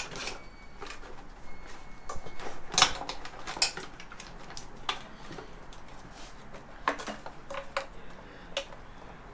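Scattered clicks, clinks and light knocks of parts and tools being handled while wiring is pulled out of a motorcycle's tail section, with the sharpest strikes about three seconds in.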